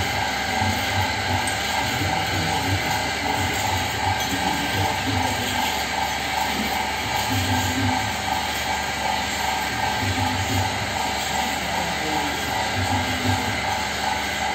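Potter's wheel running with a steady mechanical hum while wet clay is shaped on it, with a low throb that recurs about every second and a half.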